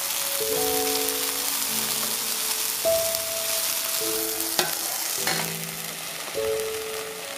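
Diced potato and eggplant sizzling in oil in a nonstick frying pan while a silicone spatula stirs them, with two sharp knocks of the spatula about halfway through. Soft background music with held melodic notes plays over it.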